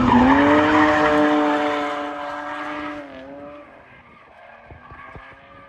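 Drift car's engine held at high revs as the car slides sideways through a corner, with tyres skidding. The engine note dips twice, once right at the start and again about three seconds in, then fades as the car pulls away.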